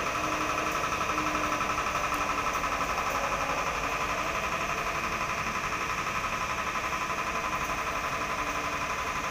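Running noise of a moving electric commuter train heard from inside the carriage, likely a JR 205-series unit: a steady mechanical hum and whine with a fast, even pulsing.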